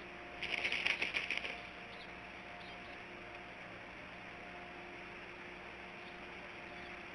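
Bald eagle's chattering call: a quick run of high, rapid notes lasting about a second, starting just after the beginning, over a faint steady hum.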